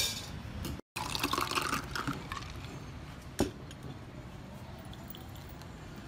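Passion fruit and soda drink poured from a pitcher into a stemmed glass, splashing and clinking for about a second and a half, followed by one sharp knock a little after the middle.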